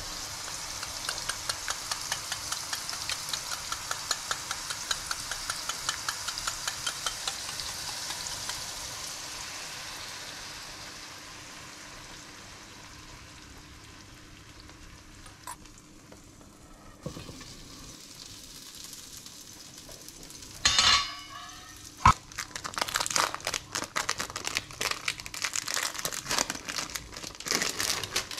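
Wire whisk beating eggs in a ceramic bowl, a rapid even clinking, over the sizzle of mushrooms frying in a pan. The sizzle carries on after the clinking stops, and near the end a plastic wrapper crinkles.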